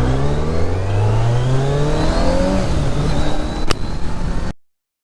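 Superbike engine, refitted with its stock exhaust, revving up: the pitch rises steadily for about two and a half seconds and then holds. A sharp click comes near the end, and then the sound cuts off.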